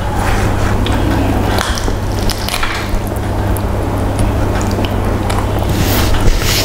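Close-up wet chewing and mouth sounds of someone eating fried chicken and rice by hand: many short smacks and squishy clicks over a steady low hum.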